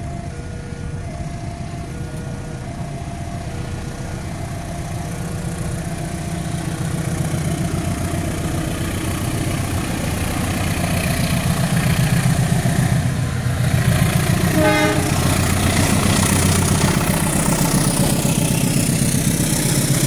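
A level-crossing warning bell sounds in an alternating two-tone pattern while a diesel locomotive's engine rumble grows as the passenger train approaches. About three-quarters of the way through comes a brief horn toot, and near the end the steel coaches rush past close by.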